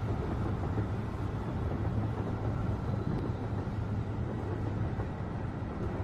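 Subway train running, heard from inside the car: a steady low rumble with a hiss of track noise.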